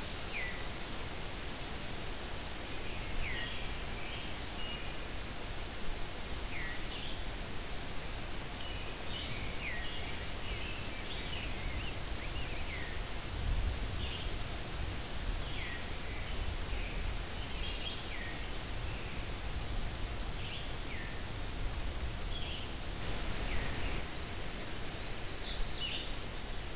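Forest ambience at dawn through a trail camera's microphone: a steady hiss with many short bird chirps and calls scattered throughout. A brief low rumble comes about halfway through.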